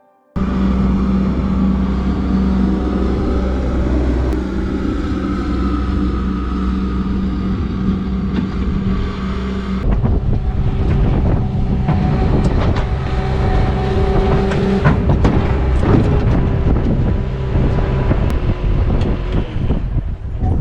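Skid steer loader's engine running steadily while clearing snow. About ten seconds in it changes to a rougher run with scraping and clattering.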